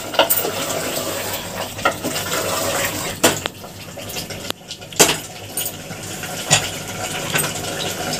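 A metal spatula stirring potatoes into mutton curry in an open aluminium pressure cooker. It scrapes and clinks against the pot about once every second or so, over a steady hiss.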